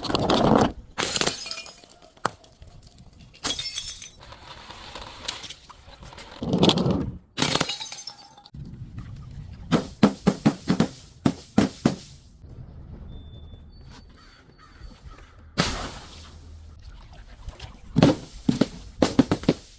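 Brittle objects being crushed and breaking: loud crunches, then quick runs of sharp cracks about ten seconds in and again near the end.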